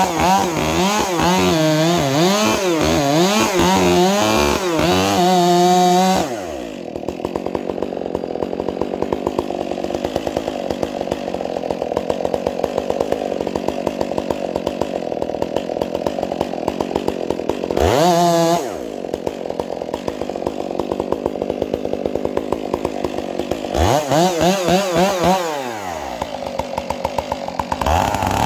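Chainsaw engine revving up and down for about six seconds, then dropping to a lower, ticking run. It revs briefly again a little past halfway, twice more a few seconds later, and climbs once more at the very end.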